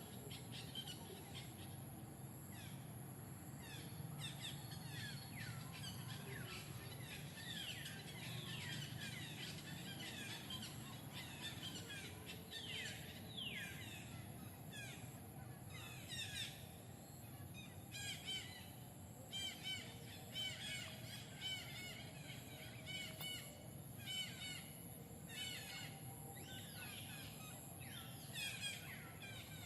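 High-pitched chirping calls: many short chirps that each fall in pitch, coming in clusters and growing quicker and more separate about two-thirds of the way in, over a steady low background hum.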